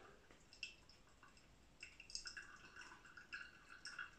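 Faint thin stream of hot water pouring from a gooseneck kettle onto coffee grounds in a paper pour-over filter cone, starting about two seconds in, with a few drips before it.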